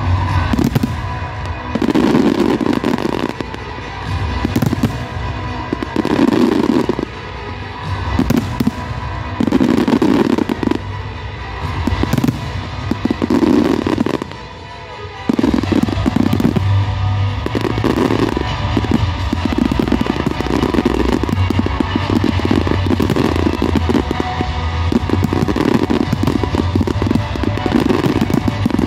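A fireworks display in a dense barrage: shells bursting in rapid, overlapping bangs and crackles, with music playing underneath. The bursting eases briefly about halfway, then resumes as a dense, continuous run of bangs.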